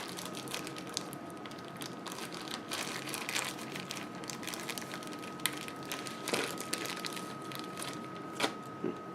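Plastic packaging crinkling and rustling as a small bag is opened by hand, with a few sharp clicks of small plastic clips being handled.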